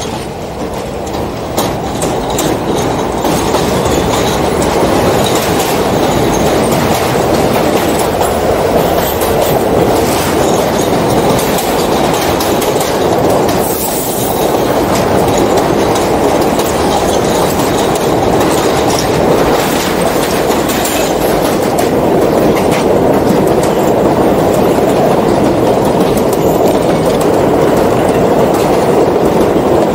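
Subway train pulling out and running along an elevated steel track: a steady rumble of wheels on rails, with clicking over the rail joints. The rumble grows louder over the first few seconds as the train picks up speed.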